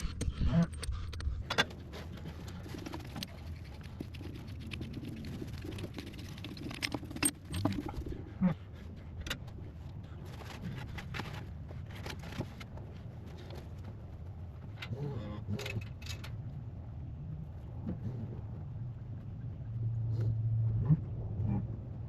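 Metal tools and hydraulic hose fittings clinking and rattling in irregular taps while fittings are worked on an excavator, over a steady low hum. A low drawn-out sound comes in near the end.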